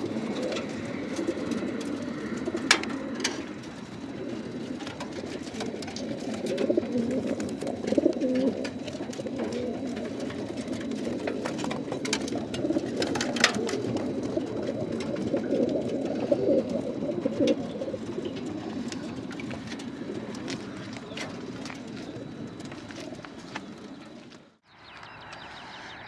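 Many racing pigeons cooing together in the crates of a pigeon transport truck, a dense steady cooing chorus with scattered sharp clicks and knocks. The cooing fades off and cuts out abruptly near the end.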